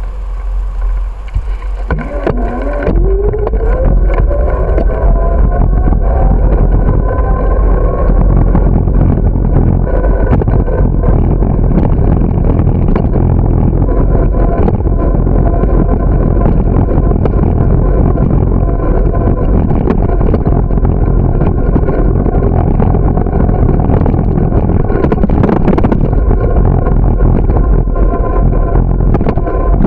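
Bicycle riding on pavement, with heavy wind rumble on the bike-mounted microphone and road noise. A whine rises in pitch over the first several seconds as the bike picks up speed, then holds steady.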